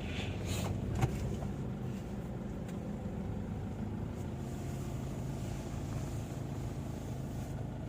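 Car engine running with a steady low hum, with one sharp click about a second in.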